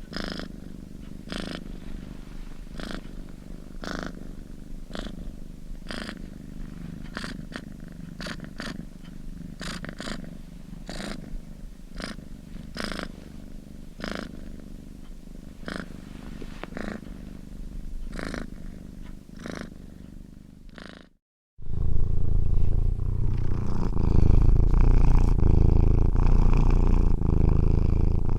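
Domestic cat purring, with a steady pulse about once a second. About 21 seconds in it cuts off for a moment and a louder, closer purr starts.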